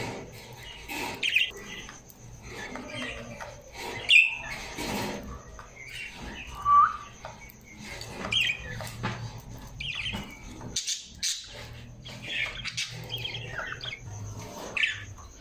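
Parrots squawking and chirping: a stream of short, irregular calls, several loud squawks standing out.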